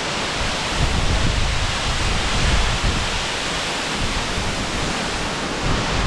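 Big Gveleti waterfall: a steady rush of falling water, with uneven low rumbles of wind buffeting the microphone.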